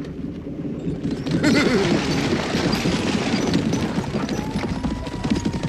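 Cartoon sound effect of a team of horses' hooves clip-clopping rapidly as they pull a coach away, starting about a second in and getting louder.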